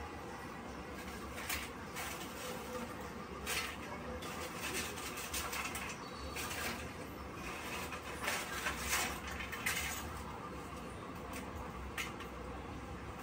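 Kitchen utensils and steel pots clinking and scraping now and then while tea is being made, over a steady low hum.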